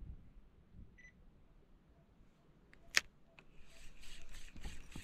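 Almost silent at first, then one sharp click about three seconds in, followed by faint, irregular clicking and rattling as a small spinning reel is worked to retrieve a micro jig.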